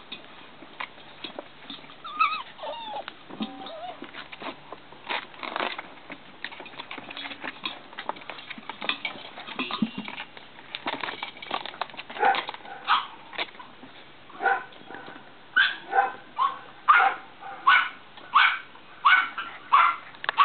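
Eight-week-old Airedale terrier puppies whining and yapping at play. The yaps build into a quick run of short, sharp yaps, about two a second, near the end.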